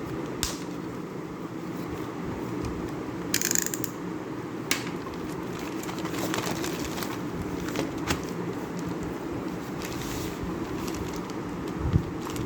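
Packaging and a small metal exhaust-tip part being handled and unwrapped: scattered sharp clicks, a brief crinkling rustle about three and a half seconds in and a thump near the end, over a steady low background hum.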